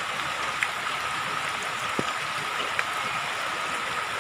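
Rain falling on shallow floodwater: a steady hiss with scattered sharp drip ticks and one lower plop about two seconds in. A faint steady high tone sits under it.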